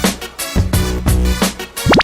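Upbeat background music with a steady beat, and a quick rising pitch glide near the end.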